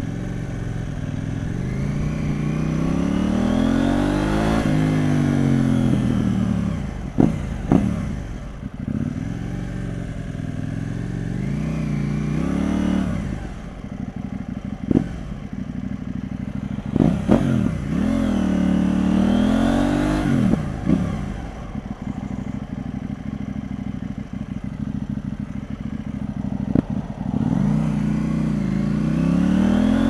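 2019 KTM 790 Duke's parallel-twin engine through an aftermarket Mivv Delta exhaust, heard from a microphone inside the rider's helmet. It pulls up through the revs and drops back again several times, with a handful of sharp cracks in between, over a steady rush of wind.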